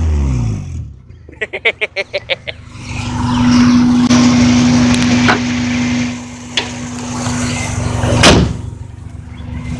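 Car engine with a badly knocking connecting rod, dropping back from a rev, then running on with a steady hum. A single sharp bang comes about eight seconds in.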